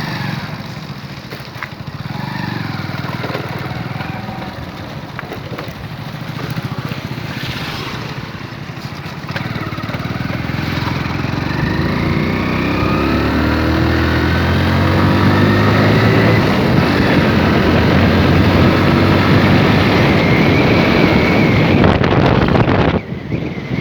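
Motorcycle engine running on the move, getting louder and rising in pitch as it speeds up about halfway through, then holding steady.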